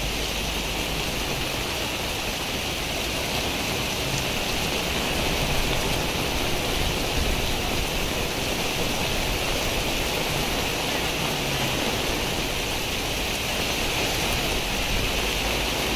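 Steady rain pouring down, an even continuous hiss with no break or change.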